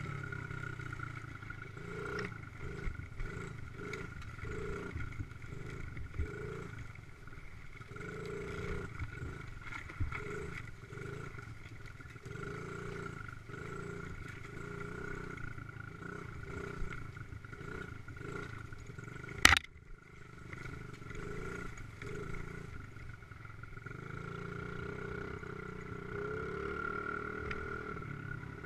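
Small dirt bike engine running at low, fairly even throttle while riding a grassy yard and woods trail. A single sharp knock stands out about two-thirds of the way through.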